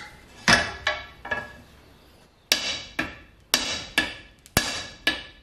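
Hammer blows on the hard plastic rim of a Ford F100 steering wheel resting on an anvil: a couple of strikes, a pause, then a steady run of about six more, roughly two a second, each a sharp knock with a short ring. The plastic is not shattering.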